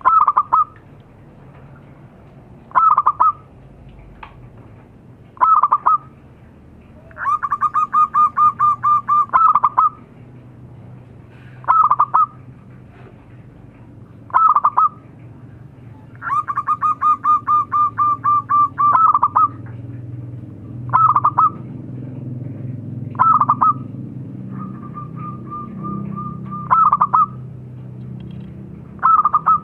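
Zebra dove (perkutut) cooing: short loud call phrases every two to three seconds, twice broken by a longer run of rapid repeated notes lasting about three seconds, and a softer run later on.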